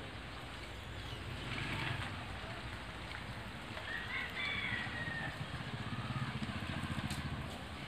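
A rooster crows once, a single drawn-out call about four seconds in, over a steady rustling hiss.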